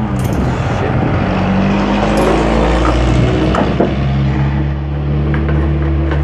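A motor vehicle's engine running close by, a steady low hum whose pitch shifts about four seconds in, with a swell of road noise around two seconds in.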